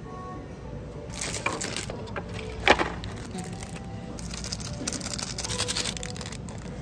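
Plastic instant-ramen seasoning sachets crinkling and being torn open and shaken over a paper bowl of dry noodles, with one sharp snap a little under three seconds in and a longer run of crackling near the end.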